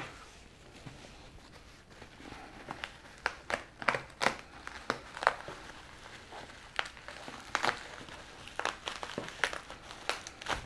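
Packaging being handled and unwrapped: irregular crinkling and rustling with scattered sharp crackles.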